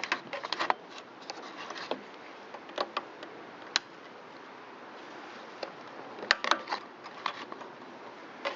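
Scattered light clicks and taps of plastic and metal parts being handled as a small engine's plastic air filter base is fitted and its throttle cable hooked up, over a faint steady hiss. The taps come in small clusters, the sharpest about six seconds in.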